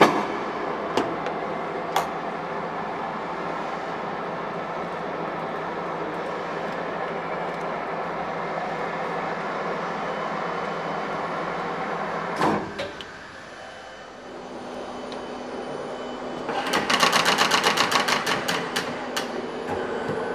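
WMW Fritz Heckert BR 40x1250 radial drilling machine running, with a steady mechanical drive noise and a sharp click as a control is worked. About twelve seconds in, a clunk is followed by the running sound dropping away. A new steady hum then builds, and a fast, loud rattle of several strokes a second lasts for about two and a half seconds.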